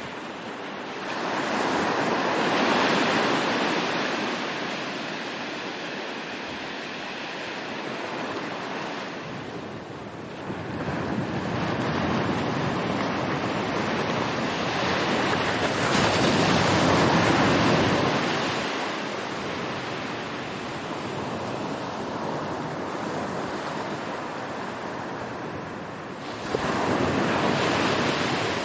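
Sea waves: surf washing in and drawing back in slow swells, about three over the stretch, the last one arriving abruptly near the end.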